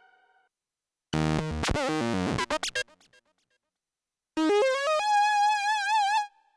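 Korg Minilogue XD synthesizer playing factory preset sounds: a dense chord with a falling sweep that breaks up into short stutters, a pause, then a quick rising run of notes ending on a held note with vibrato.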